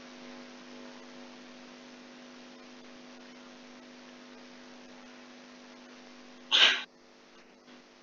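Steady low electrical hum with a few even overtones, then about six and a half seconds in a single short, loud burst of breath noise from a person, after which the hum cuts out.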